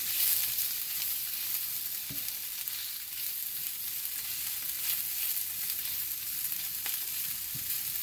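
Sliced onions, garlic and herbs sizzling steadily in a little oil in a nonstick frying pan as they are stirred with a silicone spatula, with a few soft knocks of the spatula against the pan.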